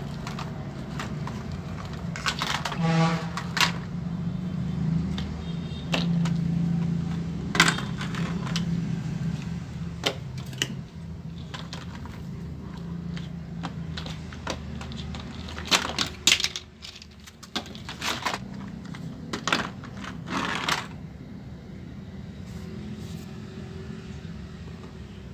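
Plastic toy construction vehicles clattering and knocking against each other and a wooden board as they are pushed along and tipped into a tub: irregular sharp knocks, over a steady low hum.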